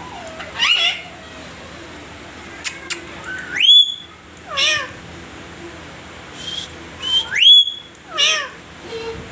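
Pet parrot whistling: three times a sharp upward-sliding whistle, each followed by a wavering, falling call.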